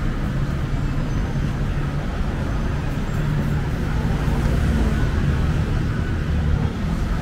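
Steady road-traffic rumble, a continuous low drone of passing vehicles with no single event standing out.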